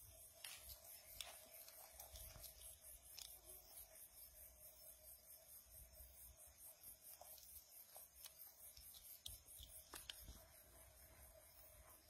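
Near silence: faint scattered clicks and scratches from an opossum scrabbling over gravel and dry debris, over a faint steady hum.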